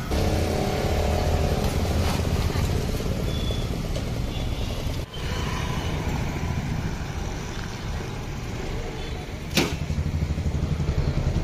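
Street traffic: motorcycle and scooter engines running and passing, with a single sharp click about ten seconds in.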